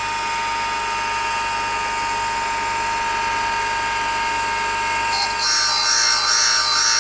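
Warren & Brown valve refacer running with a steady motor whine from its spinning stone and valve chuck; about five seconds in, the stone bites into the worn valve face and a louder hissing grind starts, run dry with the oil left off. The grind is recutting the worn face back to the right angle.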